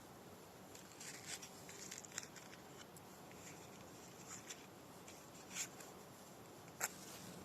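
Faint, scattered rustles and small clicks of dry wood chips and birch bark being handled and arranged as kindling, with one sharper click near the end.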